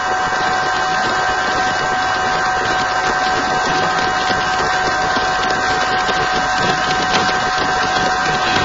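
Steady, dense tramping of a marching army of foot soldiers and horses, with a constant thin high tone running over it.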